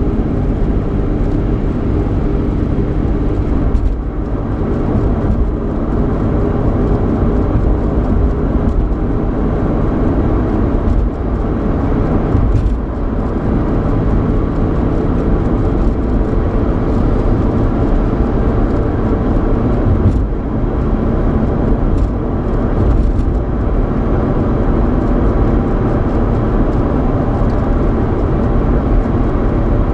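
Interior noise of a Ford Mustang with a 3.8-litre V6 on the road: a steady engine and road hum, with a few faint brief ticks now and then.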